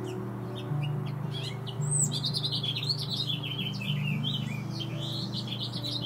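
Small songbird singing: scattered high chirps at first, then from about two seconds in a long, fast warbling run of many high notes, over soft background music with held low notes.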